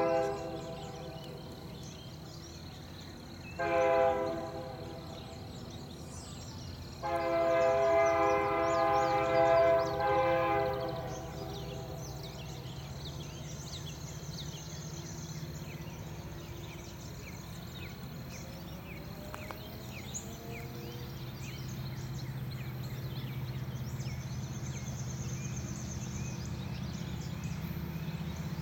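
EMD SD70M diesel locomotive's multi-chime air horn: the end of one blast, a short blast about four seconds in, then a long blast of nearly four seconds, the short-then-long close of a grade-crossing signal. After that the locomotive's low engine rumble runs steadily and grows slowly louder as the train approaches, with birds chirping.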